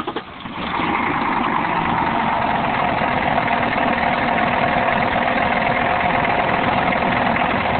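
BMW N62 4.4-litre V8 of a 2002 745i catching right after cranking and settling within about a second into a steady idle. The engine has developed a loud knock, which the owner places at the front left of the engine.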